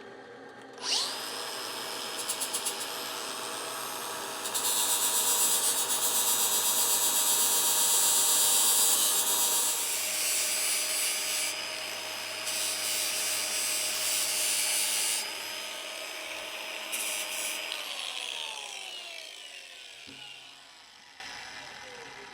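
Drill press motor switched on about a second in, spinning a 4L80E transmission valve while a grinder is held against one of its lands. Grinding hiss comes in stretches from about four to fifteen seconds in. Near the end the drill press is switched off and winds down, its pitch falling.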